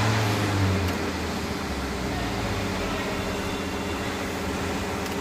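Car engine idling steadily after being started with the starter relay bypassed.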